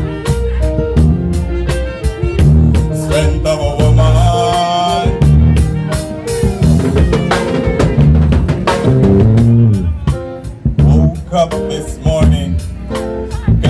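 Live reggae band playing an instrumental passage: drum kit with snare and bass drum over a heavy bass line and sustained melody notes.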